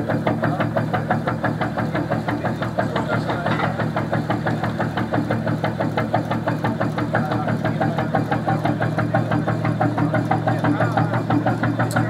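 A 1954 Union two-cylinder semi-diesel (hot-bulb) engine in a wooden fishing cutter, running with the steady, even beat of its firing strokes.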